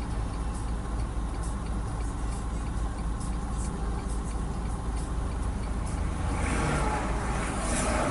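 Inside a semi truck's cab while it drives on the highway: steady engine rumble and road noise, growing louder about six seconds in.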